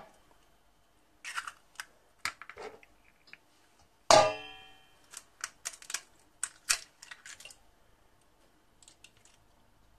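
Eggs being cracked on the rim of a stainless steel mixing bowl: scattered crackling clicks of shell breaking apart. About four seconds in comes one sharp knock that sets the bowl ringing briefly.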